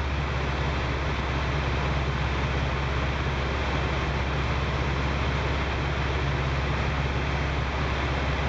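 Engine and propeller of a Jodel DR1050 light aircraft droning steadily in cruise, with a constant rush of airflow, heard from inside the cockpit.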